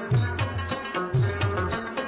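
Background music with a steady beat of low drum strokes that slide down in pitch, under a sustained stringed melody.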